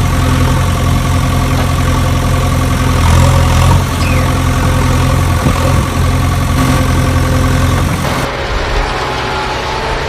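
A vehicle engine idling steadily. About eight seconds in, the sound changes to a different engine sound with less hiss.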